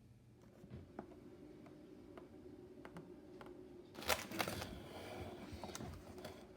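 Handling noise from a boxed teapot being picked up and moved: a few soft clicks, then a burst of rustling and crinkling with sharp taps about four seconds in.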